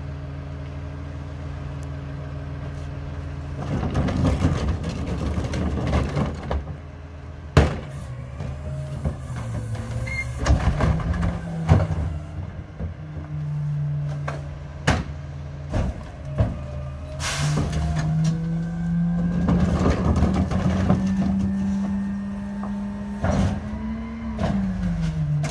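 Mack garbage truck with a McNeilus rear-loader body running at idle while a cart is tipped into the hopper, with clattering trash and several sharp bangs of the cart. About two thirds of the way in the diesel engine speeds up and holds higher with a rising hydraulic whine as the packer cycles, then drops back near the end.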